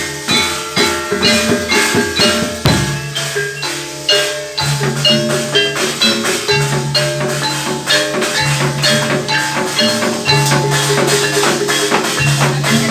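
A gamelan ensemble playing jaranan accompaniment: struck metal mallet instruments and drums keep up a fast, even beat, with a low held tone coming back every couple of seconds.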